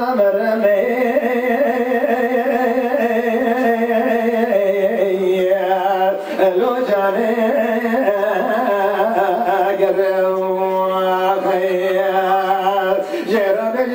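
A male Kurdish dengbêj singing a stran into a microphone in long, held, wavering notes, with a brief break about six seconds in.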